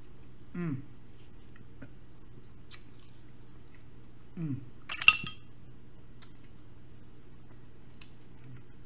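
A metal fork clinks once against a dish about five seconds in, a sharp strike with a brief ring, the loudest sound here. Before it come two short falling hums of a person eating, with faint mouth clicks between.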